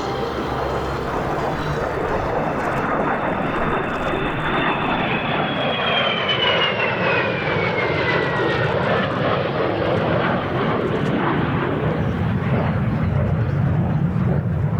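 AV-8B Harrier jet passing, its Rolls-Royce Pegasus turbofan making steady jet noise; a high whine falls in pitch for a few seconds as the jet goes by.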